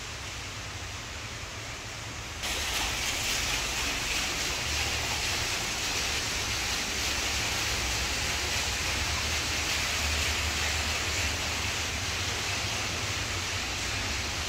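Steady rushing noise of an indoor atrium, with no distinct events. About two and a half seconds in it jumps suddenly louder and brighter, then holds steady.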